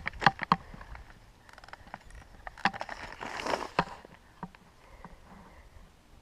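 Sharp clicks or snaps: three in quick succession at the start, a few more around the middle, with rustling in between.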